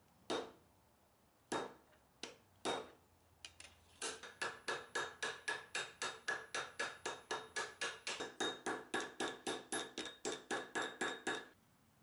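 Hand hammer forging a red-hot kukri blade cut from lawnmower-blade steel on a steel block anvil. First come a few separate blows, then a steady run of about four to five blows a second, each with a metallic ring. The hammering stops shortly before the end.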